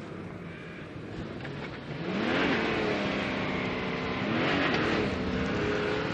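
Off-road 4x4 engine revving, the pitch and loudness climbing twice, about two seconds in and again about four and a half seconds in.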